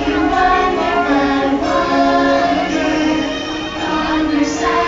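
Fireworks-show soundtrack: music with a choir singing long held notes.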